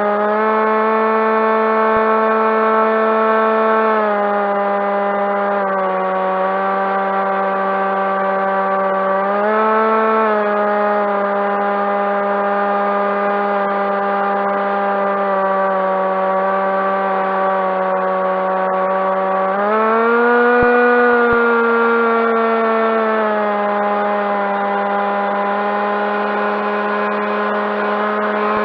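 Skywalker RC plane's electric motor and propeller running as a steady hum that shifts with throttle. The pitch drops about four seconds in, rises briefly around ten seconds, then rises again around twenty seconds in and settles back a few seconds later.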